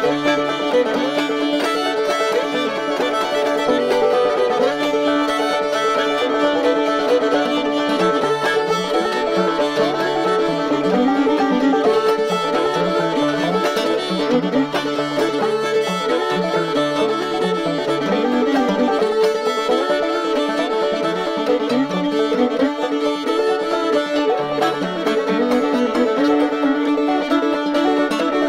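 Old-time fiddle and clawhammer banjo playing a tune together, with steady drone notes under a wavering fiddle melody.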